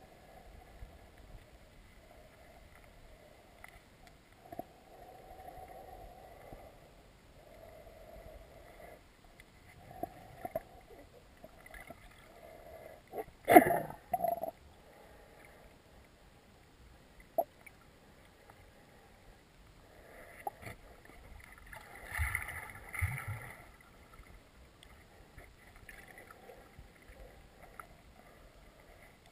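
Muffled river water heard through a submerged camera: low gurgling and swishing, with scattered knocks, a louder rush about halfway through and another about three-quarters of the way in.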